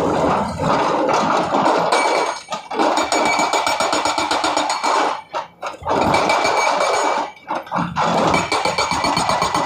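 Hydraulic rock breaker on a Sany 210 excavator hammering rapidly and evenly in bursts, stopping briefly three times between them.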